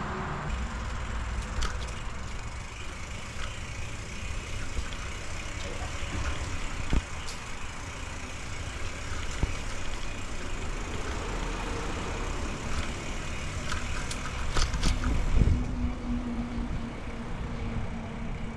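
Bicycle riding along a trail: steady low rumble of wind on the microphone and tyres rolling, with scattered clicks and rattles from the bike and a low hum in the last few seconds.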